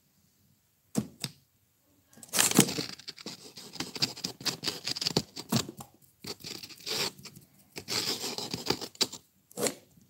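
Loud, irregular scratching and rustling close to the microphone, in bursts with short gaps.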